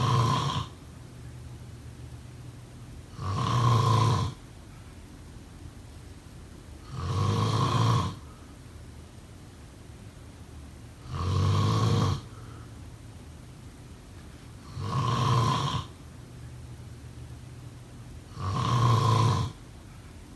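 A person snoring: six snores, each about a second long, coming evenly about every four seconds.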